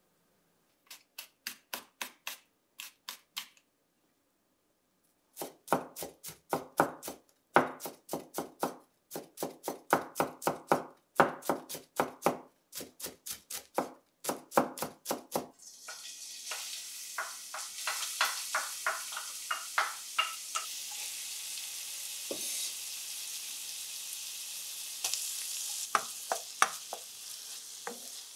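Knife chopping food on a cutting board in quick, even strokes, about four a second, in two runs with a short gap. About sixteen seconds in, food starts sizzling in a hot frying pan, with occasional clicks of a utensil stirring it.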